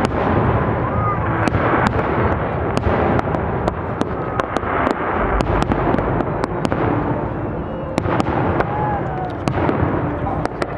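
Fireworks display: a rapid, irregular string of sharp cracks and bangs over a dense, continuous crackle.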